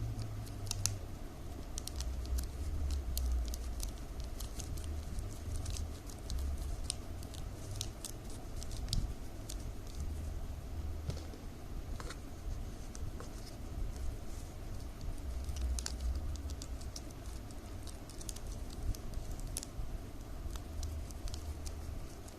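Strips cut from plastic milk powder bags crinkling and clicking as they are folded and slotted together by hand, in many small irregular crackles over a low steady rumble.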